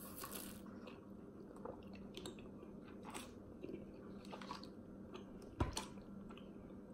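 Sipping iced tea through a straw, then quiet chewing and small mouth clicks, with one sharp knock about five and a half seconds in as the plastic cup is set down. A faint steady hum runs underneath.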